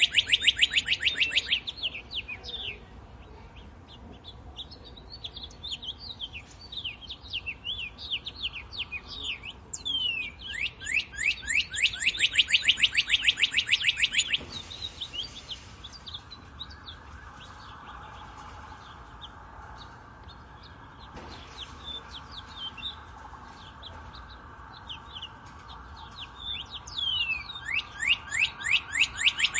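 Wild birdsong: one bird sings a loud, fast trill of quick falling notes in bouts of a few seconds, about three times. Softer chirps from other birds fill the pauses between bouts.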